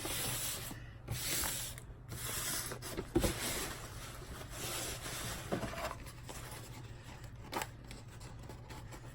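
A diamond painting canvas being handled and unfolded, its sheet rubbing and sliding in several strokes over the first six seconds, with a soft knock about three seconds in and a click near the end.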